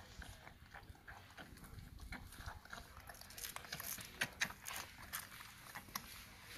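Puppies suckling at their mother dog's teats: a run of soft wet sucking and smacking clicks, busier and louder in the second half.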